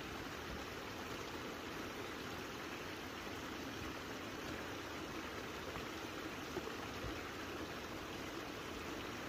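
Small moorland stream trickling over stones, a steady, even rush of water.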